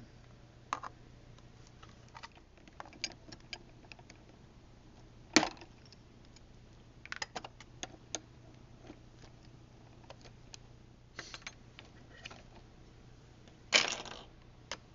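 Irregular clicks and knocks of small plastic and foam parts of an RC airplane being handled and fitted by hand, with two louder knocks, one about five seconds in and one near the end.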